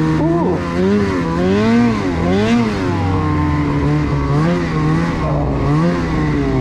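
Ski-Doo 850 Turbo snowmobile's turbocharged two-stroke engine running under throttle, its pitch rising and falling repeatedly as the throttle is worked on and off. Near the end the revs start to drop away as it comes off the throttle.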